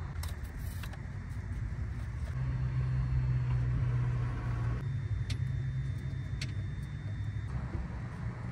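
Low vehicle rumble, most likely traffic passing the parking lot, swelling a little midway, with a few light clicks and crinkles as a replacement headlight bulb and its plastic packaging are handled.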